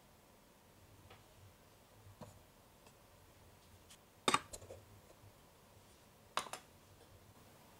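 Faint taps, then two sharp clicks about two seconds apart, each followed by a few smaller clicks: small plastic toy-kitchen pieces being handled, the first click as the clear plastic mixing bowl is lifted off the toy stove.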